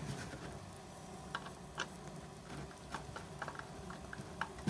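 Irregular light clicks and taps from handling the metal and wooden parts of an antique Stanley transitional hand plane during assembly.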